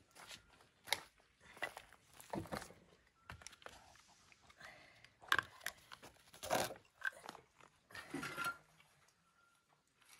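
Quiet, scattered crunches, scrapes and clicks of stones and hand tools being handled, about a dozen short sounds with pauses between them.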